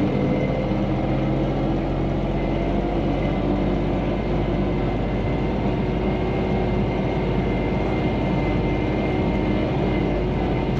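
Diesel tractor engine running steadily, its pitch drifting slightly, with a faint high whine over the top.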